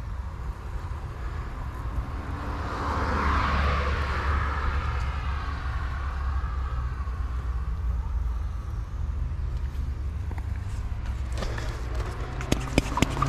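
A motor vehicle passes on the street: its tyre and engine noise swells over about two seconds, then fades away. Under it runs a steady low traffic rumble. Near the end a rapid run of sharp clicks starts.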